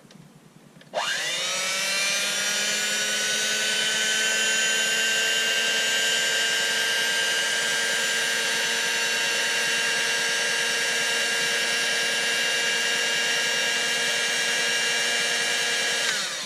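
Electric hand mixer switched on: its motor whines up in pitch about a second in, runs at a steady high speed with a loud whine, and is switched off near the end, the pitch falling as it spins down.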